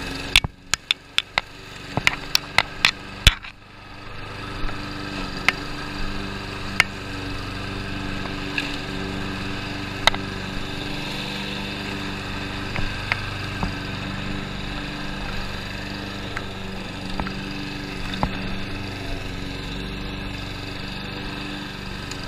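Lawn mower engine running steadily. In the first few seconds the engine sound drops away behind a quick series of sharp clicks or knocks, then comes back and runs evenly, with an occasional tick over it.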